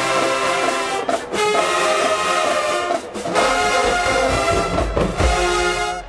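Marching-band brass playing a loud, sustained tune with short breaks about one and three seconds in. It cuts off at the end.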